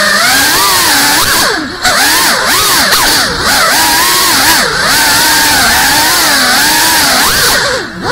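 FPV drone's small brushless motors and propellers whining, the pitch rising and falling constantly with the throttle. The sound drops out briefly twice, about two seconds in and near the end, as the throttle is cut for a flip.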